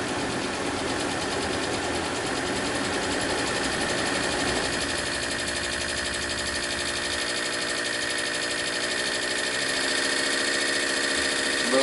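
Rudy Kouhoupt Radial 5, a small five-cylinder model radial engine, running steadily on compressed gas from a regulated tank. Its note changes about halfway through and again near the end, as the engine speed shifts.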